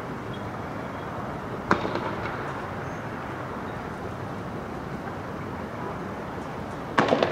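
Sharp explosive bangs during a street clash with tear gas and fireworks: a single loud bang a little under two seconds in, and a quick burst of several bangs near the end, over a steady background din.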